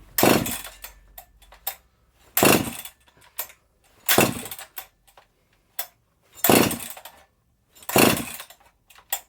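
Recoil starter of a Husqvarna 268XP chainsaw pulled five times, each pull a short rasp of rope and cranking engine, with small clicks between pulls. The engine does not fire: not even a pop.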